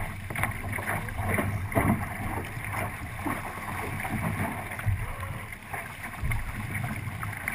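29er skiff sailing fast: water rushing along the hull with irregular slaps of water against it, and wind rumbling on the deck-mounted microphone.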